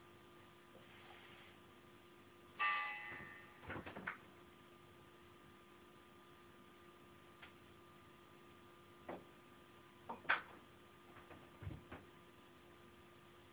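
Faint steady hum with scattered light clicks and knocks. One louder short sound with a ringing tone comes about two and a half seconds in and fades within a second.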